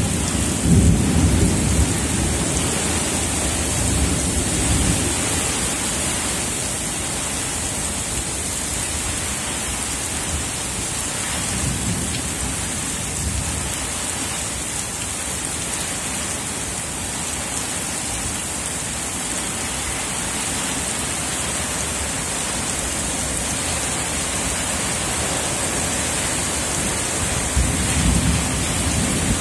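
Heavy wind-driven rain pouring steadily, a dense hiss. Low rumbles swell over it in the first few seconds, again about twelve seconds in, and near the end.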